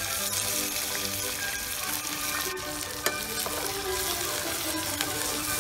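Chopped onions sizzling as they fry in hot oil in an iron kadai, stirred with a steel ladle. A single sharp knock about three seconds in.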